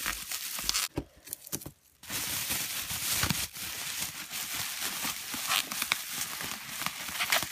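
Plastic bubble wrap crinkling and crackling as it is pulled off a toy wand, with a short lull about a second in.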